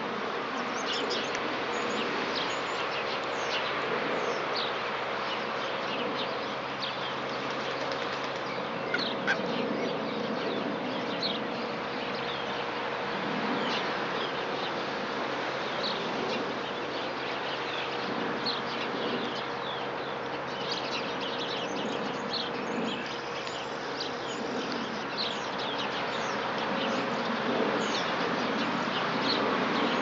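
Many small birds chirping continually over a steady, buzzing hiss, with two short sharp sounds about nine seconds in.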